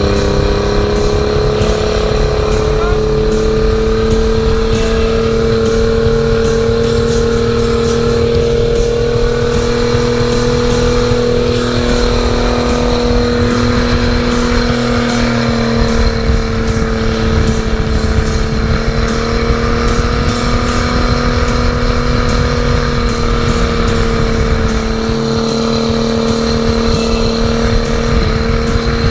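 Turbocharged Honda BF225 V6 outboard running at steady high revs, its pitch easing up over the first few seconds and dipping slightly near the middle and end, over a rough rushing noise.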